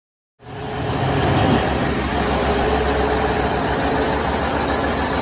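Large multi-cylinder diesel engine running steadily, heard close up in its engine room. The sound cuts in about half a second in.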